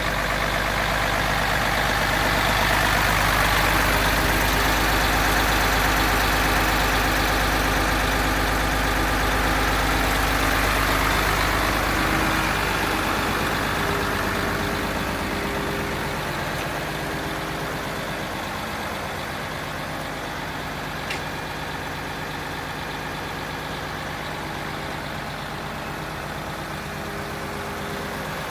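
Mercedes-Benz Actros 2636 tipper truck's V6 diesel engine idling steadily. It is louder for the first twelve seconds or so and quieter after that, with one short click about two-thirds of the way through.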